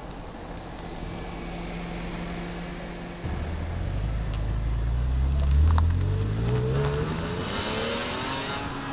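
BMW E46 M3's inline-six engine and exhaust. First there is a low steady drone as the car rolls up slowly. Then, abruptly, a loud fly-by under hard acceleration: the engine note climbs steadily in pitch, is loudest about halfway through, and fades as the car pulls away.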